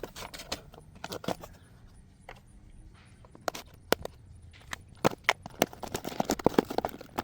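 A string of irregular clicks and light knocks from small parts and their packaging being handled, growing busier near the end.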